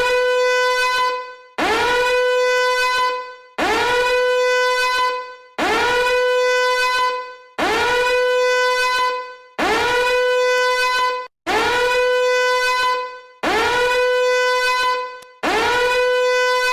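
Electronic emergency-alert alarm tone: nine loud horn-like blasts, one about every two seconds. Each slides quickly up to a single steady note and then fades.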